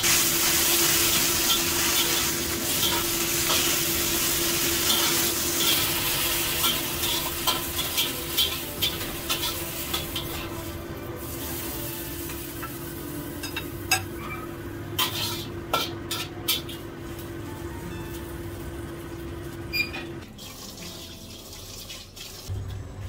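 Greens stir-frying in a carbon-steel wok: loud sizzling, with the spatula scraping and knocking the wok about every half second. The sizzle dies down after about ten seconds, and scattered clinks of utensils on the wok and dishes follow. A steady hum runs underneath and stops near the end.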